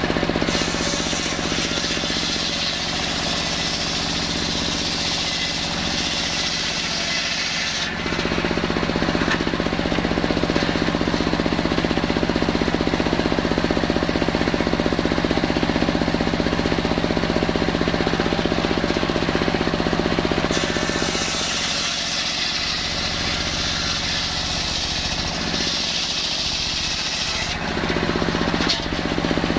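Large engine-driven circular saw bench blade ripping through salam (Indonesian bay) logs, with the machine running steadily underneath. The cutting noise is a bright high hiss at first, turns lower and heavier about 8 seconds in, and goes bright again about 20 seconds in.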